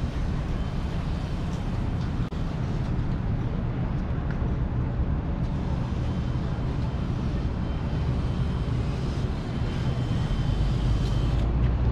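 Downtown street traffic: a steady low rumble of vehicles, with a pickup truck's engine growing louder as it passes close near the end.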